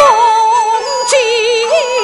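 Kunqu opera aria sung in the xiaosheng (young male role) voice: a held sung line with wavering pitch that starts abruptly, over traditional instrumental accompaniment.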